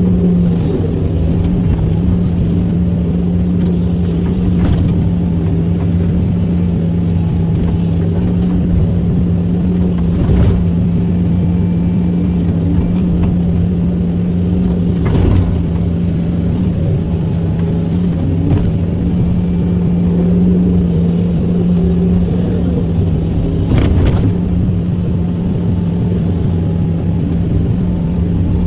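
SANY SY365H Pro excavator's diesel engine running steadily under working load, a strong constant hum. A few brief knocks stand out about ten, fifteen and twenty-four seconds in.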